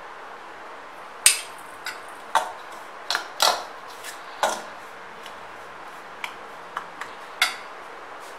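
Steel spoon clinking and scraping against a stainless steel bowl while stirring a dry mix of ground pearl millet flour and sugar; about ten sharp clinks at uneven intervals, the loudest just over a second in.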